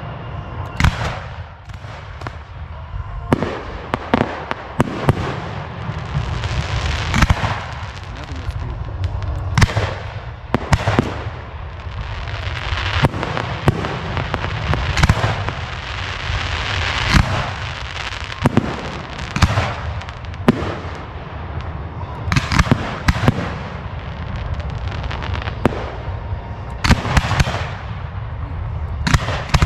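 Professional fireworks display in full swing: a dense, continuous barrage of sharp bangs from bursting aerial shells and cakes, with stretches of crackling between the reports.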